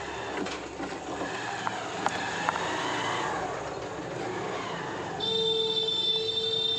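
Background traffic noise with a few light clicks, then a steady horn-like tone lasting about a second and a half near the end, briefly broken in the middle.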